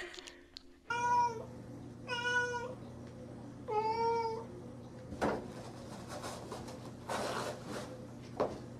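A cat meowing three times, each meow short, about a second apart, followed later by a few brief rustles and knocks.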